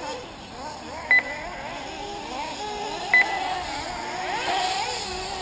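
Several 1/8-scale nitro RC buggies' small two-stroke glow engines whining around the track, their pitch rising and falling as they accelerate and brake. Two short, loud electronic beeps sound about two seconds apart, about a second in and again about three seconds in.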